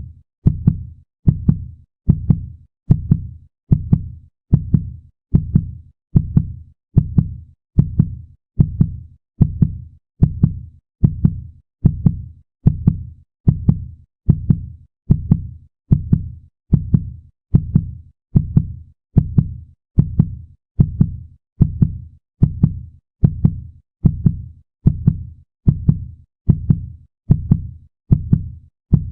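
Heartbeat sound effect: a fast, even run of low thumps, each fading quickly, at about one and a half beats a second.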